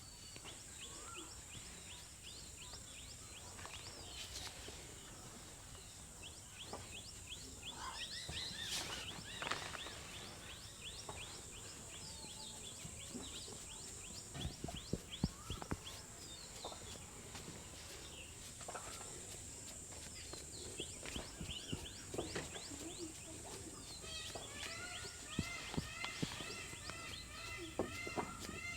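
Sharp slaps and pats of hands on a head during a massage, clustered about halfway through and again near the end. Behind them, small birds chirp over and over, with a run of repeated calls near the end, over a steady high hiss.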